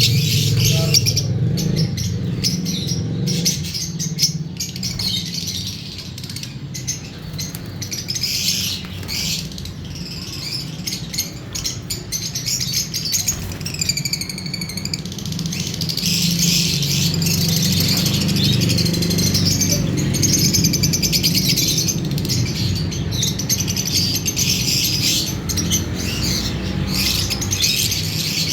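Lovebirds chirping and chattering in a rapid, high twitter. It thins out for a stretch in the middle and then grows busy again. A steady low hum runs underneath.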